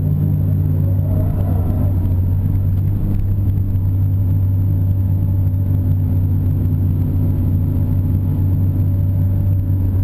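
Caterpillar 330 excavator's diesel engine running at a steady drone while the boom and bucket dig, heard from inside the cab.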